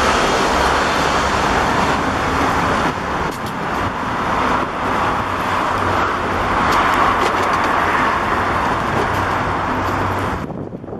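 Wheelchair wheels rolling over a concrete block-paved sidewalk: a loud, steady rolling noise with a few small knocks. It falls away sharply near the end as the chair reaches smooth asphalt.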